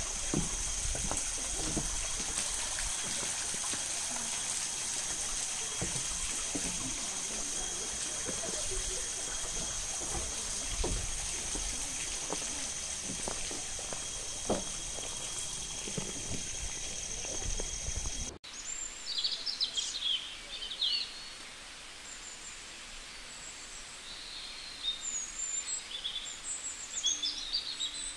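Night insects chirring in several steady high-pitched tones over a hiss, with scattered low thumps. This cuts off suddenly about 18 seconds in, giving way to a quieter morning background with short bird calls and chirps.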